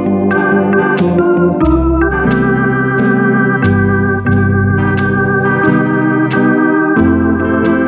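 Orla Ringway RS 600 electronic home organ playing a jazz arrangement: held chords over bass notes that change about every two seconds, with regular sharp beats from a rhythm accompaniment.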